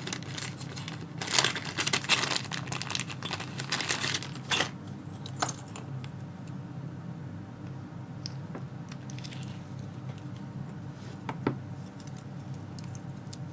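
Small metal lock parts clicking and rattling busily for the first four seconds or so, then a few single light clicks spaced out: the pins and springs of a six-pin Trioving padlock cylinder being pushed out with a follower and set into a pinning tray.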